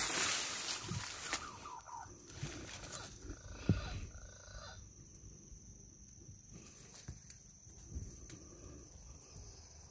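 Rustling handling noise as the scope and phone are swung about, loudest at the start and fading, with a single sharp click a little before the halfway point. A thin, steady high-pitched tone runs underneath from about a second in.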